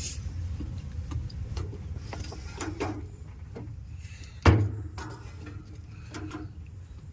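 Scattered knocks and clatter from objects being handled, with one loud thump about halfway through, over a low steady hum.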